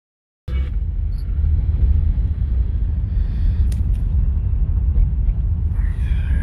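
Car being driven, heard from inside the cabin: a steady low rumble of road and engine noise that starts abruptly about half a second in.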